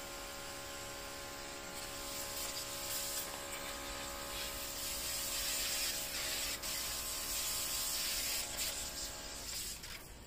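Baseus cordless electric pressure washer running, its pump motor humming steadily under the hiss of the high-pressure water jet on the car. The motor hum cuts off near the end.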